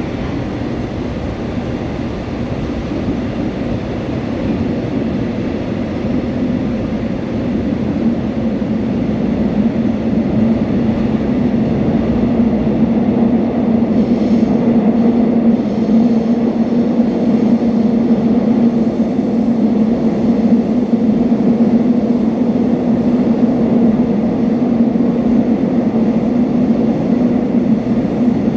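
A Seoul Subway Line 4 train running between stations: continuous rumbling running noise with a steady low hum. It grows louder over the first ten seconds or so, then holds steady.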